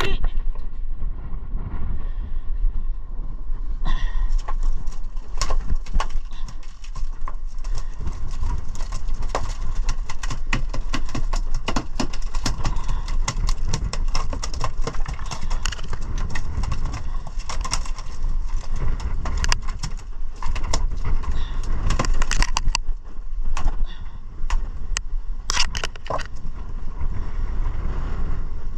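Small fishing boat under way at sea: a steady engine rumble and wind on the microphone, broken by many sharp knocks and splashes as the hull slaps through the waves.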